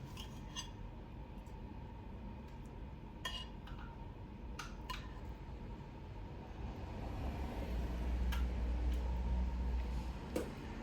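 A few separate light clinks and clicks over a low rumble that grows louder in the later part.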